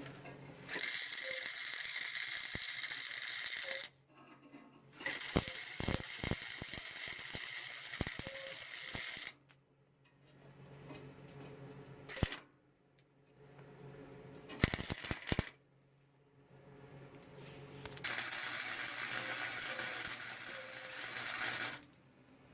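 Arc welding crackling in five bursts that start and stop sharply: two long runs of about three to four seconds, a brief blip, a one-second burst, then another long run near the end. This is tack welding a part onto a mini trike's steel frame.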